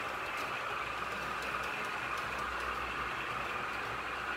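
Model train running along the track: a steady whirring rumble of wheels and motor, with occasional faint clicks from the rails.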